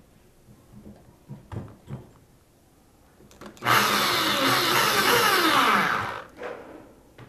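Handheld electric drill running for about two and a half seconds, boring a hole through a thin aluminium tube, its pitch sliding down as it slows before stopping. A few light knocks from handling the tool come before it.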